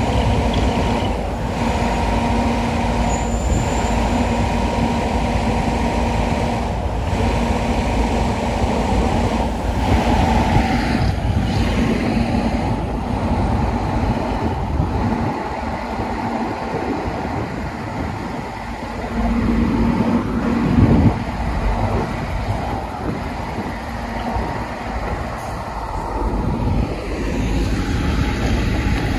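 Diesel engines of large trucks idling and running slowly as they move in a queue and turn in, with a short louder swell about twenty seconds in.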